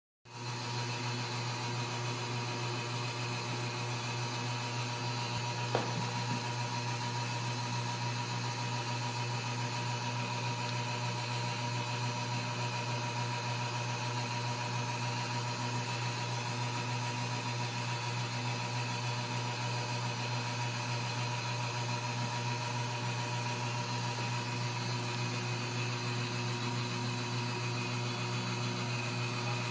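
Steady low mechanical hum with no change in pitch or loudness, and a single short click about six seconds in.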